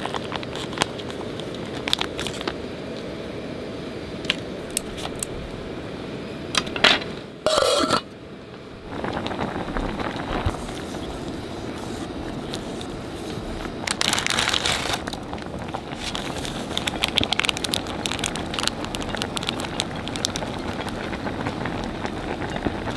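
Cooking at a pot on a gas camp stove: a steady hiss of the burner and simmering broth under crinkling and tearing of a ramen packet and light clicks and scrapes of wooden chopsticks against the pot. A louder rustle comes about a third of the way in, and a denser stretch of crinkling about two-thirds in.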